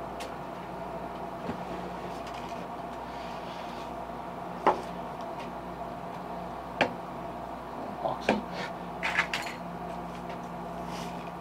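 Small plastic paint bottles being picked up and set down on a tabletop: a handful of short, sharp knocks and clicks, the loudest about halfway through and a quick cluster near the end, over a steady low hum.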